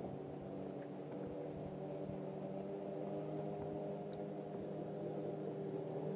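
A boat motor running at a steady speed, giving an even hum that holds one pitch.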